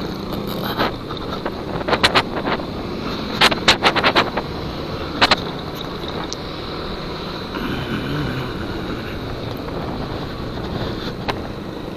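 Yamaha NMAX scooter riding, heard as a steady rush of wind and road noise on the handlebar camera's microphone. Sharp knocks and rattles come as it jolts over potholes: a few around two seconds in, a quick cluster around four seconds, and one more a little after five seconds.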